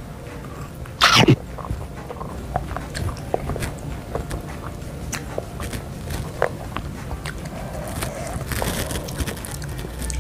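A person slurping up spicy chicken noodles in one loud slurp about a second in, then chewing with many small wet clicks, and a softer slurp near the end.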